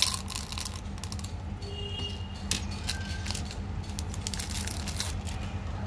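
Candy packaging crinkling and crackling as it is handled in the hands, in irregular clusters of crisp crackles, with one sharp click right at the start. A steady low hum runs underneath.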